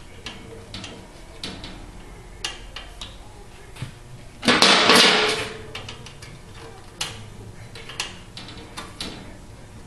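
Hand tools working on a small engine: scattered metallic clicks and knocks, with one loud clatter lasting about a second, starting about four and a half seconds in.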